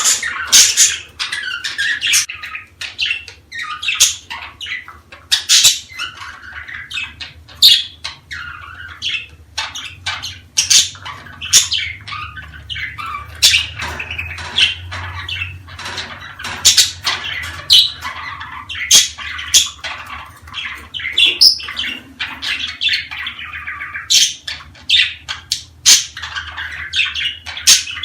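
Budgerigars chattering and warbling nonstop, with frequent sharp chirps and squawks, over a low steady hum.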